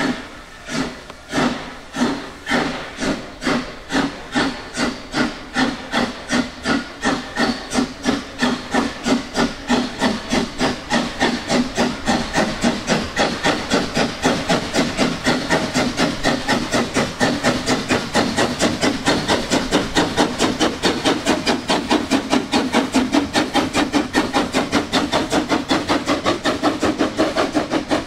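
Narrow-gauge steam tank locomotive 99 4011 working hard as it pulls away, its exhaust chuffing in a steady rhythm that quickens from about two beats a second to four or five and grows louder as it comes close.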